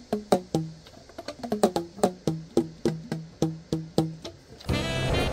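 Keys of a Selmer Mark VI alto saxophone being fingered without blowing: each pad closing on its tone hole with a short pitched pop, about four a second, the pitch changing with each key. Near the end a held saxophone note comes in.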